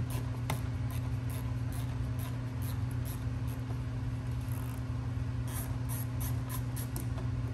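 Light, irregular clicks, about two to three a second, from a hand tool backing out the 8mm screws that hold the fender liner to the bumper, over a steady low hum.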